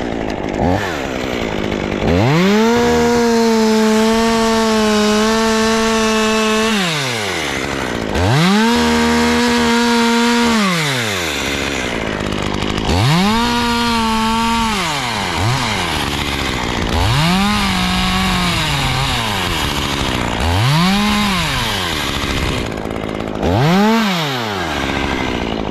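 Chainsaw revved to full throttle six times, each time rising quickly, holding and dropping back to idle; the first bursts last a few seconds and the later ones are shorter. This is the saw cutting a scarf into a limb to steer its fall.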